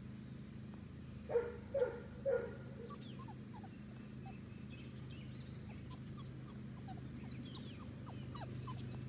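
Fox red Labrador puppies, about five and a half weeks old, yipping: three short, high yips in quick succession about a second and a half in.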